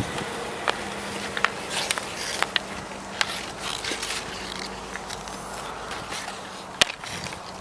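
Hockey stick and skate blades on outdoor ice: scattered sharp clicks and scrapes as a small child stickhandles, with one louder crack about seven seconds in.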